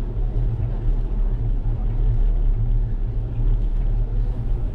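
Steady low rumble of wind buffeting a bicycle-mounted GoPro's microphone, with the tyres rolling on asphalt.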